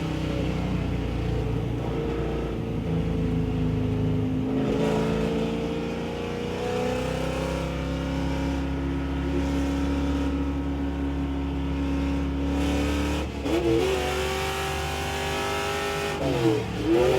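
Race car engine heard from inside the cabin under hard acceleration on track, its pitch rising steadily through a long pull. About thirteen seconds in, the pitch drops and changes, and near the end a wavering squeal sets in as the tires slide.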